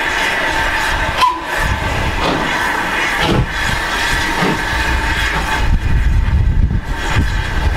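LMS Ivatt 2MT 2-6-2 tank steam locomotive starting away slowly: slow exhaust beats from the chimney about a second apart, over a steady hiss of steam from its open cylinder drain cocks.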